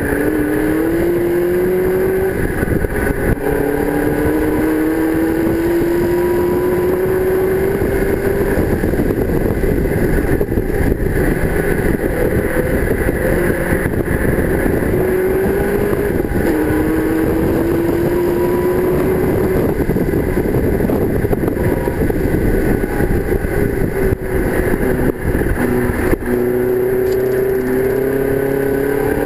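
The TVR Tuscan Challenge car's 4.5-litre AJP V8 running hard at racing speed. Its pitch climbs steadily under full throttle, then drops sharply at each upshift of the close-ratio five-speed gearbox, a few times over.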